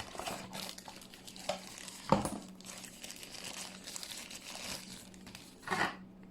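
Packaging crinkling and rustling as accessories are handled during an unboxing, with louder crackles about two seconds in and again near the end.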